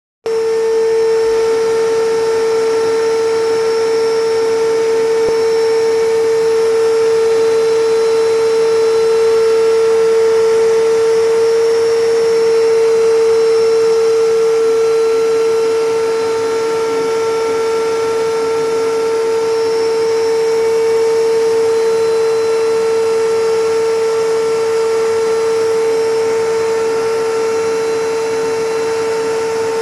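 Vacuum cleaner running steadily: a constant motor whine on one strong note over the rush of air, with no change in speed.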